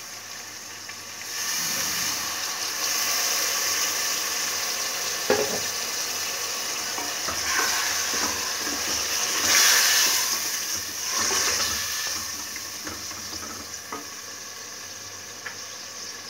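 Goat meat, onions and spices frying in hot oil in a steel pot, with a loud sizzle that starts about a second in as a little water is added to keep the spices from burning. A wooden spoon stirs and knocks against the pot, and the sizzle dies down near the end.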